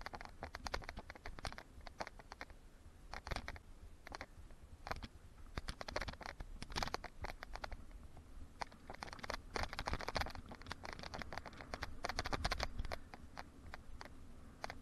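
Mountain bike riding along a dirt trail: tyres on the dirt with irregular clicks and rattles from the bike, over a steady low rumble.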